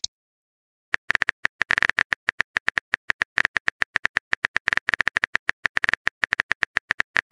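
Typing sound effect: a long run of rapid, uneven clicks starting about a second in, as a message is typed out.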